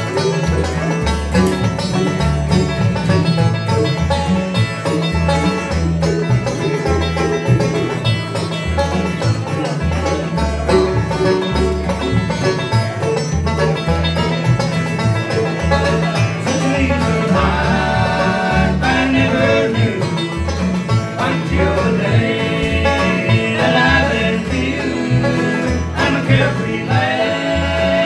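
Bluegrass band playing live: banjo, mandolin and acoustic guitar over a steady, evenly pulsing upright bass. Voices join in singing together in the second half.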